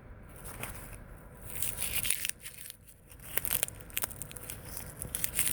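Leatherman Surge saw blade being scraped down a ferro rod to throw sparks: a rasping scrape, then a quick run of short scraping strokes in the second half.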